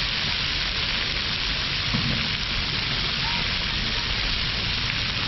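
Chicken breasts and a flatbread sizzling on a large flat-top griddle: a loud, steady frying hiss.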